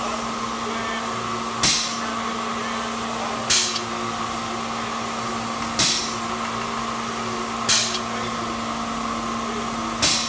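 Air-driven gelcoat spray pump running. Five short, loud puffs of air hiss, about every two seconds, as the pump cycles, over a steady hiss and hum from the spray rig.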